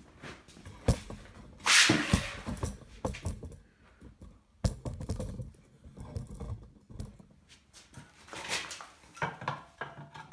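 Metal parts and tools being handled on a workbench: scattered clinks and knocks, with a louder scraping rush about two seconds in.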